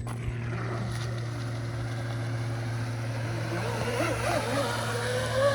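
TFL Zonda RC twin-motor catamaran running on a 6S battery, its brushless electric motors and propellers whining with a pitch that wavers with the throttle and climbs near the end.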